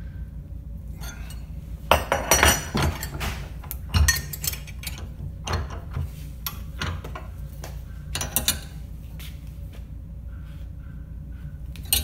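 Metal orthosis stirrup and uprights clinking and knocking against a bench vise as they are set in the jaws and handled: a scattering of sharp metal clinks, the loudest about two and four seconds in.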